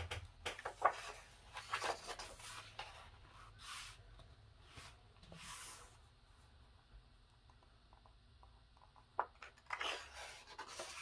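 Pages of a coloring book being turned by hand: a series of papery swishes and rustles, several in the first few seconds, a quieter stretch, then more near the end.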